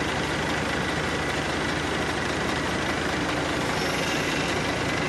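Forklift engine running steadily with an even, fast pulse, the forklift holding a loaded cage at the container door.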